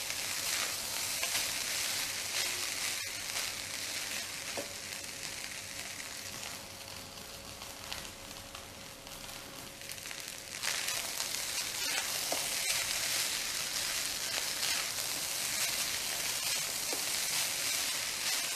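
Rice stir-frying in a wok on high flame: a steady sizzle with the scrape of a spatula turning and tossing it, so the rice at the bottom roasts crisp. The sizzle eases for a few seconds past the middle, then jumps back up and holds.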